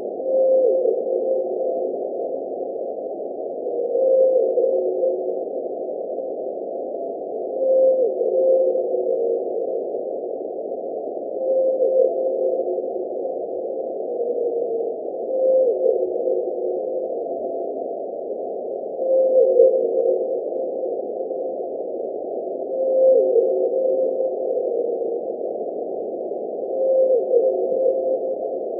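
Antarctic blue whale calls recorded by an ocean-bottom seismometer and raised twenty-fold in pitch to be audible. A held tone steps down to a lower one, repeating about every four seconds, eight times, over a steady hiss of sea-floor noise.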